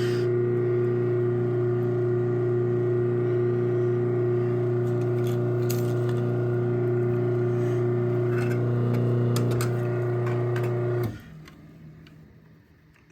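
Craftsman 1/2 hp chain-drive garage door opener (model 139.53930DM) running to close the door: a steady motor hum. It stops abruptly about eleven seconds in.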